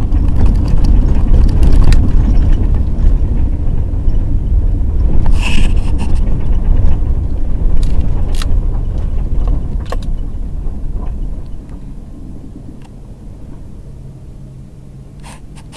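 A vehicle running and moving, a loud low rumble with a few clicks and knocks, easing off about twelve seconds in to a quieter, steady engine hum.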